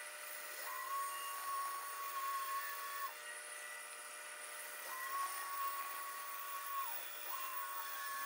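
Pegas scroll band saw running, its narrow blade cutting through small wooden pieces. There are three cuts, each with a steady whine lasting one to two and a half seconds and a short pause between them.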